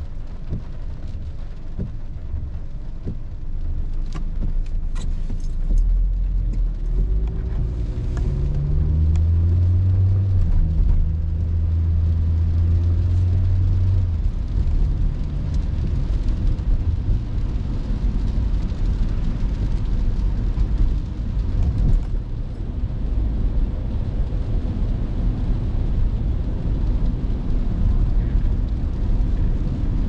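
Honda car heard from inside the cabin, pulling away and accelerating, its engine note climbing for several seconds and then settling into a steady cruise. Tyres hiss on the rain-soaked road throughout.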